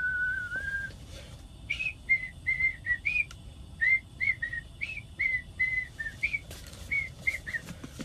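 A person whistling a tune: one longer held note at the start, then a run of short, clear notes that stops shortly before the end.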